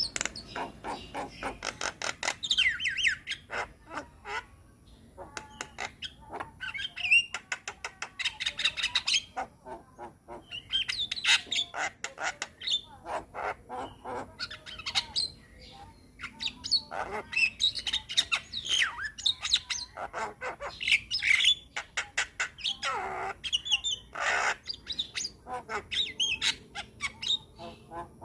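Javan myna (jalak kebo) singing a long, varied chattering song: fast runs of clicks, whistled glides and harsh squawks, delivered almost without pause.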